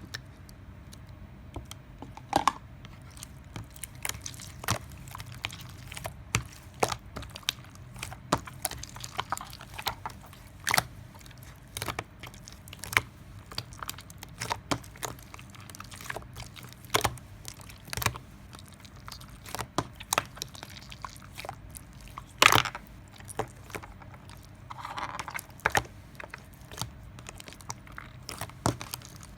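A person biting and chewing fruit close to the microphone: irregular crisp crunches and wet clicks, some loud, several times a second.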